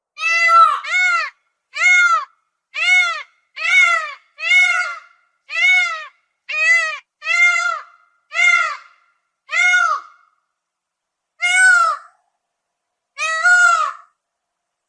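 Peacock calling: a rapid series of about fifteen short, loud calls, each rising then falling in pitch, the gaps between them growing longer toward the end.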